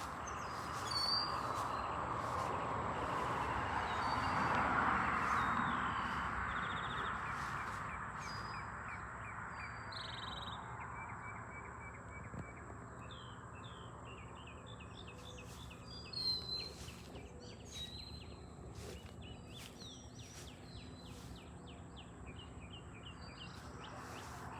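Several birds chirping and calling in a morning chorus, with a fast run of repeated short notes in the second half. A steady rushing noise underneath is loudest in the first several seconds and then fades.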